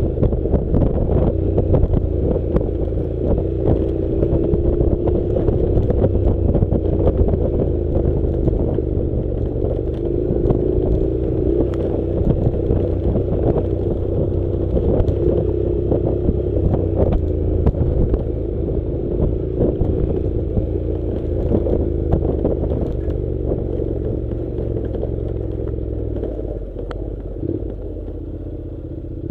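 Honda NC700 motorcycle's parallel-twin engine running at a steady, slightly wavering pace while riding a rough dirt track, with frequent clatter and clicks from the track and the bike. The engine eases off slightly near the end.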